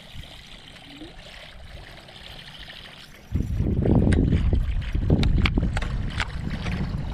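Water rushing and splashing against a small boat as it gets moving, starting suddenly and loudly about three seconds in as a low, rumbling noise; before that only a faint hiss.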